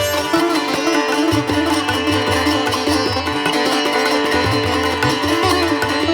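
Indian classical-style instrumental background music: a plucked string melody, sitar-like, over a steady drone, with low drum beats.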